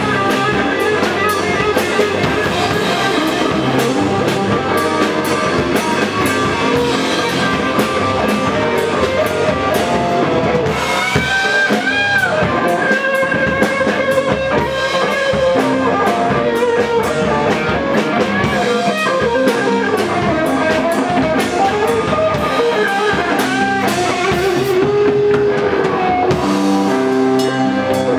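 A rock band playing live: electric guitars and a drum kit.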